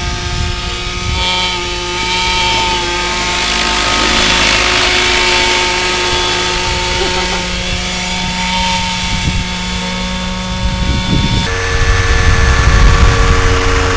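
Large radio-controlled helicopter's engine and rotor blades running in flight, a steady mechanical note. The pitch shifts abruptly about a second in and again near the end, when it is loudest as the helicopter passes low and close.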